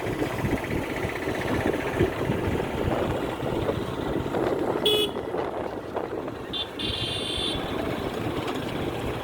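Steady rumble of a moving vehicle on a road, with wind on the microphone. A short horn beep sounds about seven seconds in.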